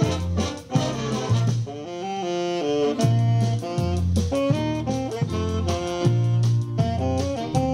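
Instrumental music: a melody on a wind instrument over a bass line and a steady beat.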